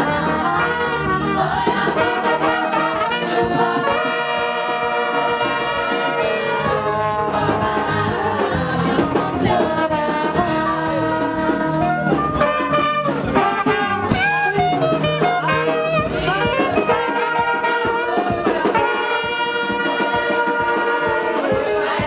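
A brass band playing a tune, trumpets and trombones on a held melody.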